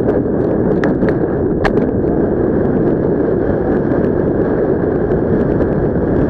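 Steady wind rushing over a helmet camera's microphone in paragliding airflow, with a few sharp knocks in the first two seconds.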